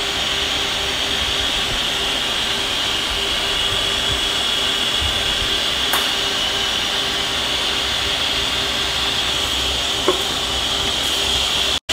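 Steady shop machine noise: an even hiss with a constant hum underneath. Two light taps come through it, one about halfway and one near the end.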